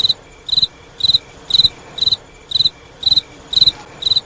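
Cricket chirping in a steady rhythm, about two chirps a second, each chirp a quick trill. It is the stock crickets sound effect for an awkward silence.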